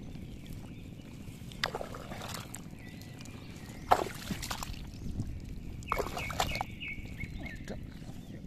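Hands scooping and squelching through wet mud and shallow water, in three splashy bursts about two seconds apart, while digging out an eel burrow.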